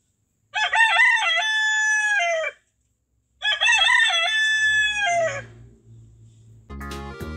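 Domestic rooster crowing twice, each crow about two seconds long: a few quick broken notes, then a long held note that drops away at the end.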